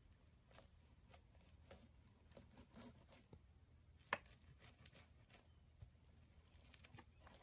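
Slime being squeezed and worked by hand, giving faint scattered clicks and small pops, with one sharper click about four seconds in.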